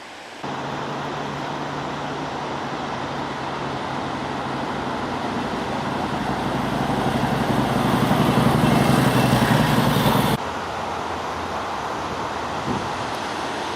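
A motor vehicle's engine running with a steady hum over a continuous rushing roar, growing louder over several seconds and then cutting off suddenly, leaving the steady roar.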